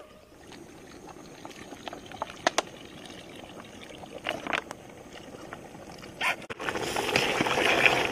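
A low hiss with scattered clicks and snaps, then, after a sudden cut about six and a half seconds in, a louder, dense rustling hiss as a ladle stirs steaming biryani rice in a large metal pot over a wood fire.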